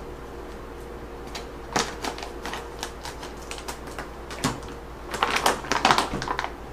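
Scissors and a plastic pasta pouch being handled, then precooked elbow macaroni shaken out of the pouch into an empty slow-cooker crock. It makes a run of light clicks and crinkles, busiest and loudest from about five to six and a half seconds in.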